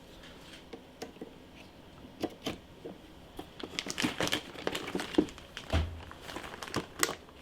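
Hands handling a RAM stick at a motherboard to seat it in its slot: rustling with a string of small clicks and taps, busier in the second half, and a low knock about two thirds of the way in.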